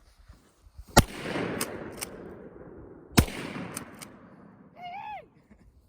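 Two shotgun shots about two seconds apart at a pair of thrown clay targets, each crack followed by a long rolling echo. A short vocal cry follows near the end.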